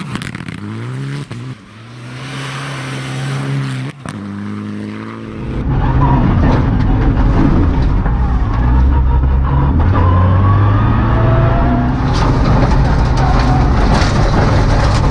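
Rally car engine revving hard, its note climbing and dropping through several gear changes as the Mitsubishi Lancer Evolution X slides through a snowy bend. About five seconds in it changes to louder engine and road noise of a rally car at full load, heard from inside the cabin.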